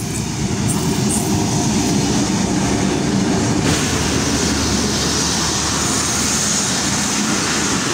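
Pakistan Railways passenger train passing close by at a level crossing: its diesel locomotive and then its coaches roll past, with a steady, loud rumble of wheels on the rails.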